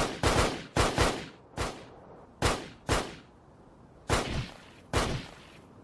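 A string of about nine gunshots: sharp cracks that each fade quickly. The first several come close together, and the last few are about a second apart.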